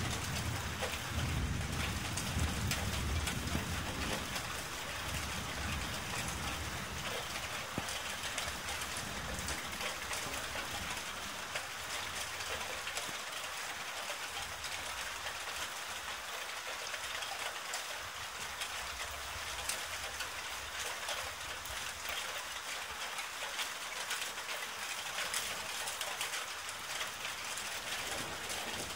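Steady rain hissing down in a tropical storm, with a low rumble of thunder that dies away over the first few seconds.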